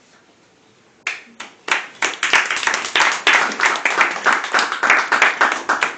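Audience clapping: a few first claps about a second in, then quickly building into steady applause.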